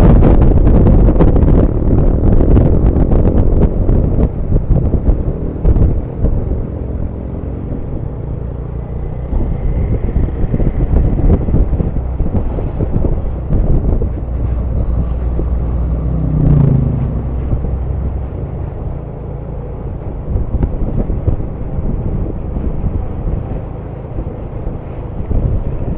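Intercity bus's diesel engine running through an aftermarket exhaust, loudest for the first few seconds and then settling to a lower, steady level. A short rising note comes about sixteen seconds in.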